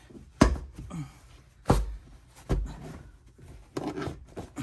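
A car's rear seat being shoved and pressed back into its mounts: three dull thumps about a second apart, then lighter knocks and scuffs of the seat and trim near the end.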